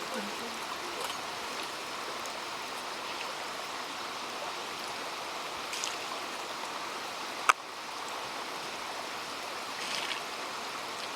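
Steady rush of flowing water, with a single sharp click about seven and a half seconds in.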